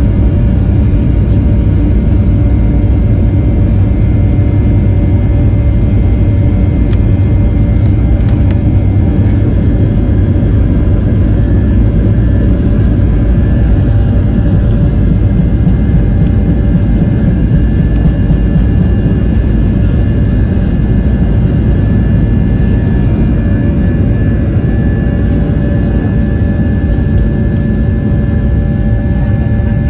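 Boeing 737-700's CFM56-7B turbofan engines at takeoff power during the takeoff roll, heard from inside the cabin: a loud steady roar and low runway rumble with a high fan whine over it. The rumble lessens a little near the end.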